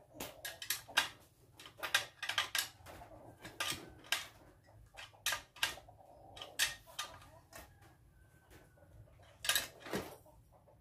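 Irregular light metallic clinks and clicks of parts and tools at the front wheel axle of a small children's bicycle being fitted. The clicks come several a second, with a louder knock about three quarters of the way through.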